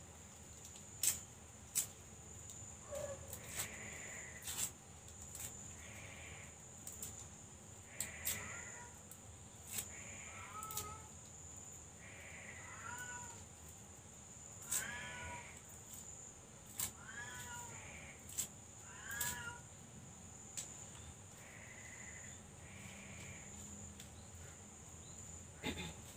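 A cat meowing over and over, short calls that rise and fall in pitch every second or two, with sharp clicks scattered between them.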